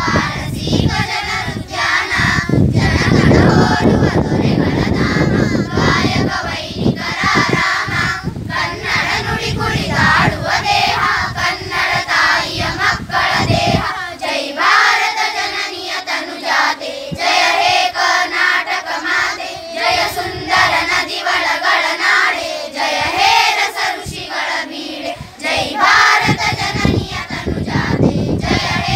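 A group of schoolchildren singing together without accompaniment. A low rumbling noise sits under the singing for the first half and stops about halfway through.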